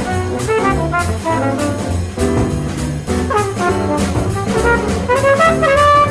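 Small jazz group recording: a trumpet plays a fast improvised line of quick notes over bass and drums, with steady cymbal strokes keeping time.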